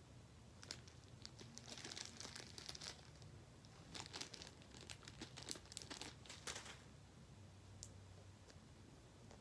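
Faint crinkling of plastic packaging with small clicks, in short spurts that die away about seven seconds in, as a packet of craft beads is handled.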